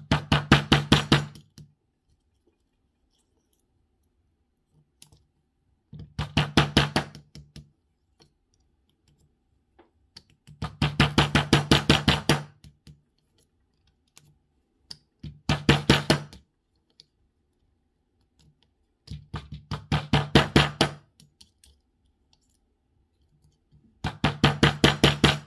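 Small hammer rapidly tapping a pin punch to drive the pin stacks out of a Best Cormax SFIC core while gutting it. Six bursts of quick taps come about ten a second, each burst lasting a second or two, with pauses of a few seconds between.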